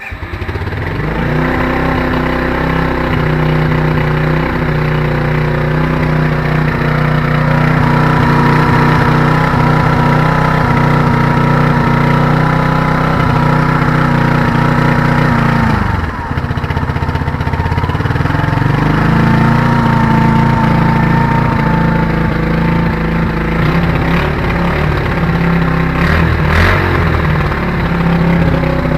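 A 1984 Yamaha SR125's single-cylinder four-stroke engine runs through its exhaust, held at raised revs, dropping back around the middle and then revving up again. A few sharp pops come near the end: the misfire at higher revs that sounds like anti-lag, which the owner puts down to an intake leak.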